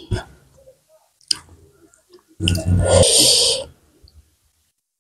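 Close-miked eating sounds from a person eating rice and buffalo curry by hand: a few small clicks, then a loud noisy mouth sound lasting just over a second about halfway through.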